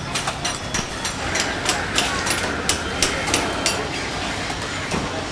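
City street din: a steady rumble of traffic with a run of sharp knocks, about three a second, between about one and four seconds in.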